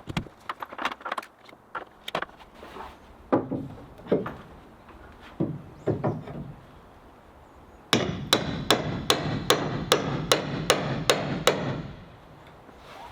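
Hammer striking wood: scattered knocks, a few heavier blows, then about eight seconds in a faster run of about three sharp strikes a second over a steady noise that stops about a second and a half before the end.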